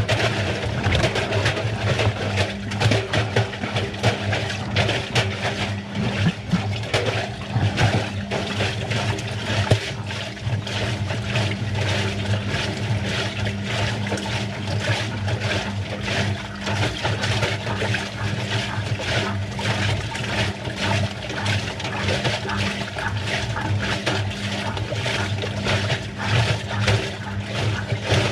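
Washing machine running a wash cycle: a steady low motor hum under water sloshing in the turning drum, with many small irregular knocks.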